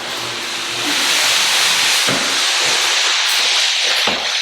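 A heavy box dragged across the floor: a steady scraping hiss with a few dull knocks.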